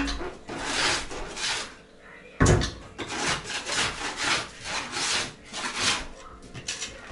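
Straw broom sweeping a floor gritty with brick dust and mortar, in repeated scratchy strokes. A heavy thud about two and a half seconds in, as the water basin is set down on the floor.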